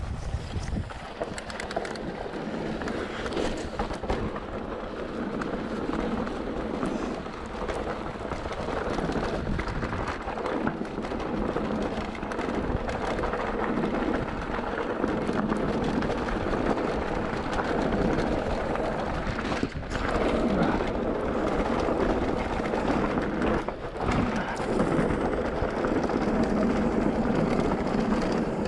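Mountain bike riding fast down a dirt singletrack: a steady rumble of tyres on dirt and stones, the bike rattling, and wind buffeting the handlebar camera's microphone, with a few sharp knocks from bumps in the trail.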